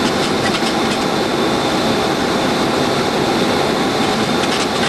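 Steady engine and airflow noise heard from inside a Boeing 737-700 descending on approach: an even rush with a low rumble underneath. A few faint light ticks come through near the start and again near the end.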